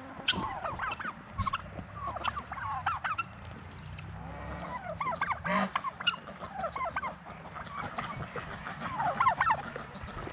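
Mixed backyard poultry flock of geese, ducks, turkeys and chickens calling over one another while feeding, many short overlapping calls. A sharp knock about a second and a half in and a louder, harsher burst a little past the middle.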